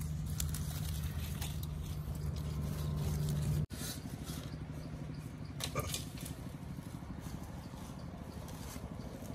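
Leaves and bamboo skewers rustling and scraping as grilled fish are handled on a bed of leaves, with faint ticks. Under it a steady low hum, which breaks off suddenly about a third of the way in and is followed by a softer low rumble.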